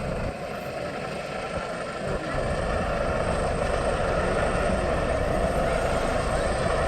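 Coastguard helicopter hovering low, a steady wash of rotor and engine noise that grows louder about two seconds in.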